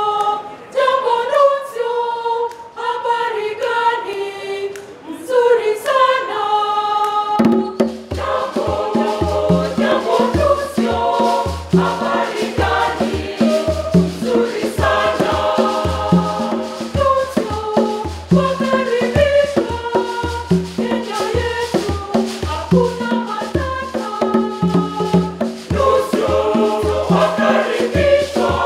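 Choir singing, at first unaccompanied; about seven and a half seconds in a bass line and percussion with a steady beat join in.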